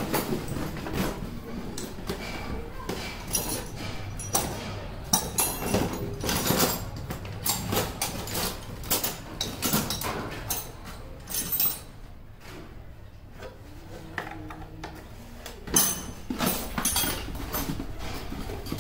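Irregular knocks, clicks and clatter of hand tools and metal parts while an electric water heater is being taken apart, with a few sharper knocks about five, eleven and sixteen seconds in.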